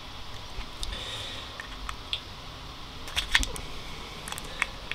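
Small plastic clicks and scrapes of a heart rate sensor pod being handled, its watch battery and cover being pressed back in with a knife blade. Scattered clicks, several close together a little past three seconds in.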